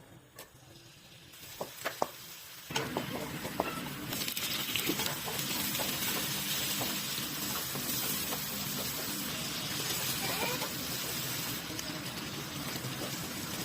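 A few sharp clicks, then food sizzling in a hot pan from about three seconds in: a steady hiss with scattered small pops that grows louder a second later.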